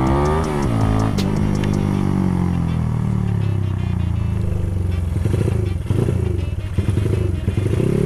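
Modified Honda CB motorcycle's single-cylinder four-stroke engine, built with a 65 mm piston and a 70 mm stroke, under way. It revs up briefly about half a second in, then falls steadily in pitch as the bike slows, ending in an uneven low-rev pulsing over the last few seconds.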